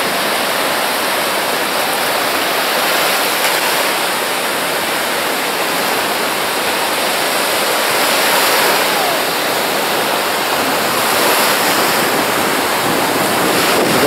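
Sea surf breaking and washing over the shallows of a sandy beach: a steady rushing of waves.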